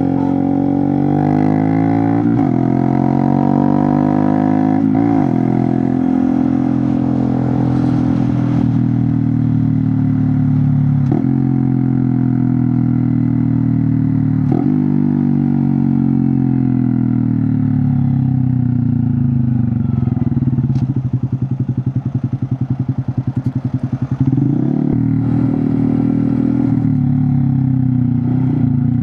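Honda Monkey 125's single-cylinder four-stroke engine running through a Scorpion titanium exhaust with the baffle removed, recorded on the move. Its pitch climbs and falls with throttle and gear changes, with sharp breaks at several shifts and a pulsing off-throttle stretch near the three-quarter mark.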